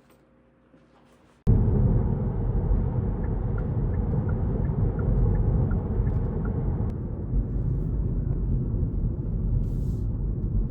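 A steady low rumble starts abruptly about a second and a half in, with faint quick ticking for a few seconds in the middle.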